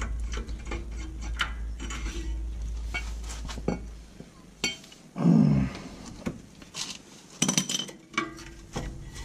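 Metal clinks and scrapes as rear disc-brake parts of a Toyota Prado are handled: the caliper is lifted off the rotor, then the rotor is gripped. Sharp clinks come throughout, with a cluster of louder ones about seven and a half seconds in.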